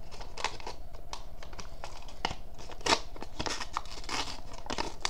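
Trading-card pack wrapper being torn open and crinkled by hand: a run of irregular crackles and short rips.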